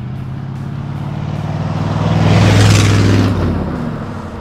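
A 1977 Ford F-150's 351 Cleveland V8 with dual exhaust driving past. It grows louder to a peak about two and a half seconds in, then drops in pitch and fades as the truck moves away.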